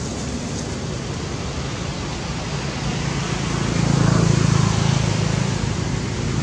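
Steady low rumbling background noise, swelling for a couple of seconds about four seconds in.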